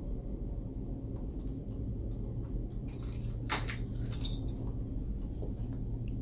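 Steady low hum of room tone, with a brief flurry of small clicks and rustles about three and a half seconds in; one sharp click there is the loudest moment.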